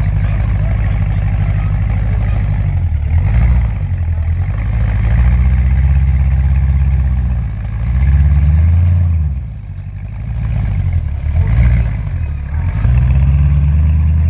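LSX V8 engine of a rock-crawler buggy running hard under load, its note rising and falling, easing off twice near the middle before picking back up.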